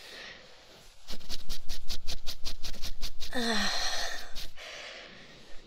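Female voice making rapid, dog-like huffing breaths, about nine short breaths a second for a couple of seconds. Then comes a short breathy vocal sound that falls in pitch.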